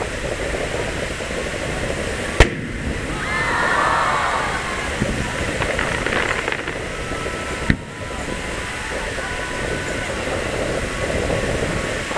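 Two sharp booms of aerial firework shells bursting, about five seconds apart, over a steady background of crowd voices and wash from the sea.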